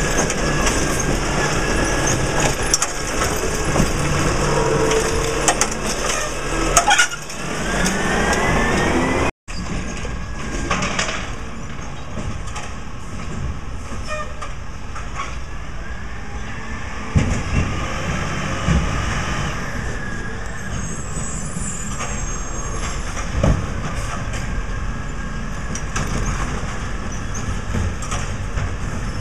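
Peterbilt 320 garbage truck's diesel engine running hard as the Curbtender automated side arm hydraulically lifts and dumps a recycling cart, with a rising whine about seven seconds in. After a sudden break, the truck's engine runs more evenly as it rolls slowly along, with a couple of short clunks.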